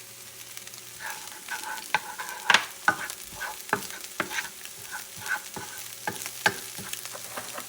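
Chopped onions sizzling in olive oil in a hot non-stick pan, with a utensil scraping and tapping against the pan at irregular intervals as they are stirred.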